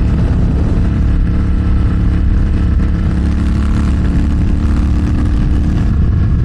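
Royal Enfield 650 parallel-twin motorcycle engine running at a steady cruise, with wind rushing over the rider's microphone.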